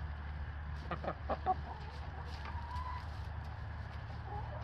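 Domestic hens clucking: a few short clucks about a second in and a longer call rising in pitch near the end, over a steady low rumble.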